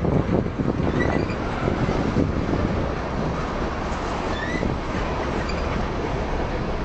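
Freight train rolling past: a steady rumble of wheels on rail, with a few clanks in the first second.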